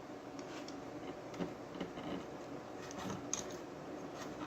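Scattered light clicks and taps of a screwdriver and small tools working on a speaker's amplifier board, as the screws holding the output chip are removed.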